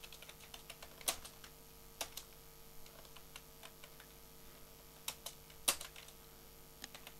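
Quiet typing on a computer keyboard: scattered, irregular key clicks, with sharper strokes about a second in and just before six seconds.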